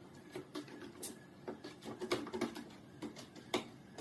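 Cat scrabbling inside a hooded plastic litter box: irregular scratches, scrapes and clicks of litter and a plastic scoop knocking against the box, busiest about two seconds in, with one sharp click about three and a half seconds in.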